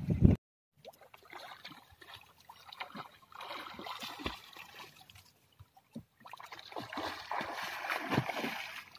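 A person swimming freestyle in the open sea, his strokes making irregular splashes that swell and fade, with water lapping around them. The sound drops out briefly just after the start.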